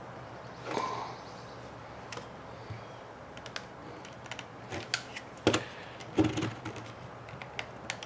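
Small plastic clicks and knocks as a battery compartment is squeezed and pushed into the housing of a handheld RC radio transmitter, with two louder knocks about five and a half and six seconds in.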